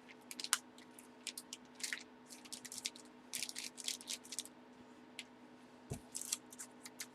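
Faint, irregular clicks and rustles of trading cards and plastic card sleeves being handled and sorted on a table, over a low steady hum.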